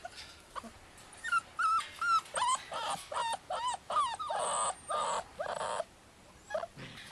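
Bearded Collie puppies whining and yipping: a quick run of high cries with wavering pitch starting about a second in, with a few harsher, noisier yaps in the middle, dying away near the end.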